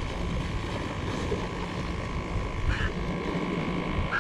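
A steady drone of a distant motor over a low rumble of wind and surf.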